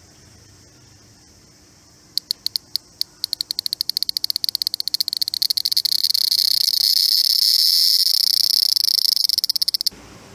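A cicada singing: separate high clicking pulses, a few a second at first, speeding up until they run together into a continuous high buzz that stops suddenly near the end.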